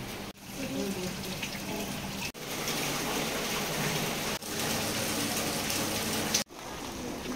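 Steady rain falling on stone paving and steps, with water running off. The sound breaks off abruptly a few times for an instant and resumes.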